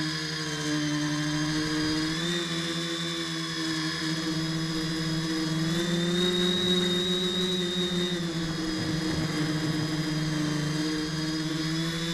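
Tricopter's three brushless motors and 10x4.5 propellers humming steadily, with a pitch that rises and falls a little several times as the throttle changes.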